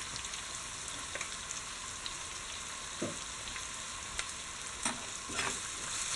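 Sliced onions sizzling steadily as they fry in hot oil in a pan, with a spoon stirring and scraping against the pan a few times.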